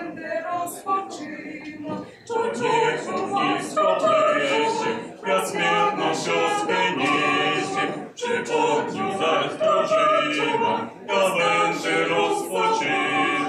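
A group of voices singing a song together without instruments. The singing gets louder about two seconds in.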